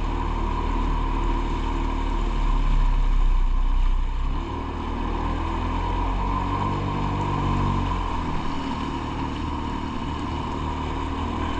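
2003 Polaris Virage personal watercraft's engine and jet drive running steadily under way. The note eases a little about four seconds in and shifts again near eight seconds.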